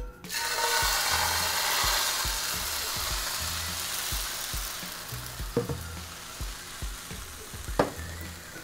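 Crepe batter hitting a hot, oiled nonstick frying pan and sizzling: the sizzle starts at once, is loudest for the first couple of seconds, then slowly dies down as the batter sets. Two light knocks come later on.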